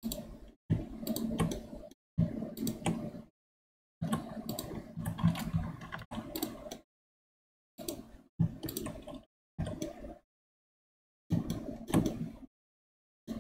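Computer keyboard keystrokes and mouse clicks in short clattering bursts that cut off abruptly to dead silence between them.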